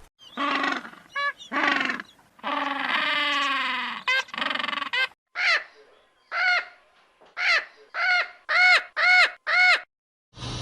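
Animal calls: a run of separate pitched calls, one longer call with falling pitch near the middle, then a series of short rising-and-falling calls that grow louder toward the end.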